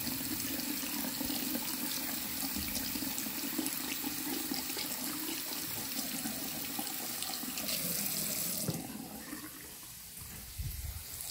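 Water running steadily from a bathroom sink faucet and splashing over a hand held under the stream, then shut off about three-quarters of the way through.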